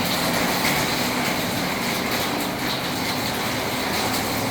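Steady heavy rain falling: a dense, even hiss with faint scattered drips.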